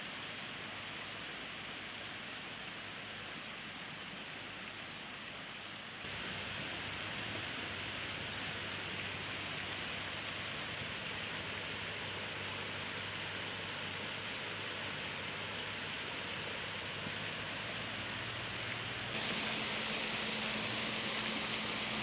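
Steady hiss of outdoor background noise with a faint low hum and no bird calls; it steps up a little louder twice, about a quarter of the way in and near the end.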